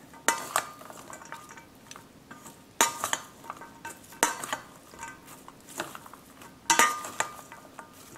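Chopsticks and a metal spoon tossing shredded lotus stems, carrot and red onion in a stainless steel bowl: scattered clinks against the bowl, each with a short metallic ring, loudest about three seconds and seven seconds in.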